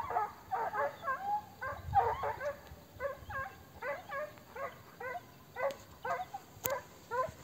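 Hunting dogs baying in a steady run of short, high yelping barks, about two or three a second, typical of hounds giving tongue while working a hare's scent.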